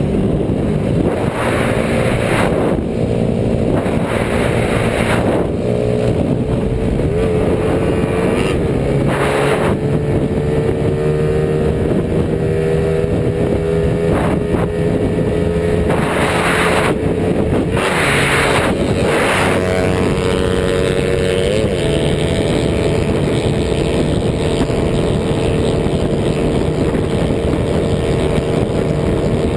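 Motorcycle engine running hard at speed, its pitch slowly climbing as it accelerates, with steady wind rush and several gusts of wind buffeting the microphone.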